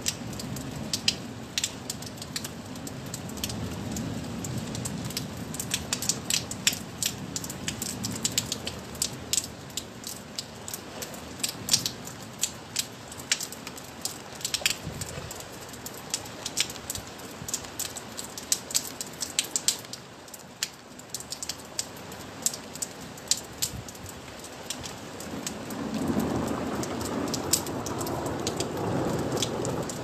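Steady rain, with many sharp, irregular drop taps striking close by. A broader low rush of noise swells up near the end.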